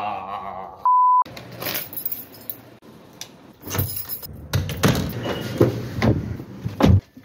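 A short, steady electronic bleep about a second in. Then keys jangle and a lever door handle clicks and rattles as a door is opened, followed by a run of clicks and knocks and a heavy thump near the end.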